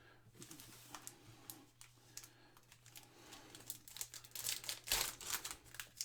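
Trading card packs being opened and handled: wrappers crinkling and tearing, with cards rustling and clicking against each other. Sparse at first, it gets much busier about four and a half seconds in.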